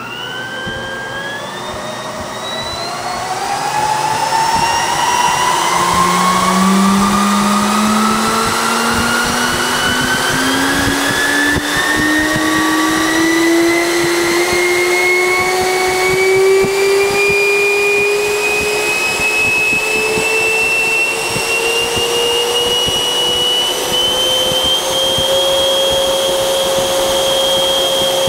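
Electric ducted fan of a FlyFly Mirage model jet on a motor test run, spooling up under slowly advanced throttle: a whine that climbs steadily in pitch, levels off near the end, then starts to fall right at the close.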